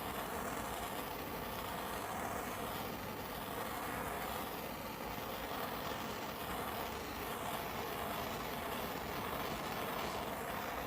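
Propane torch burning steadily, a constant rushing flame sound with no breaks, as it scorches pallet wood.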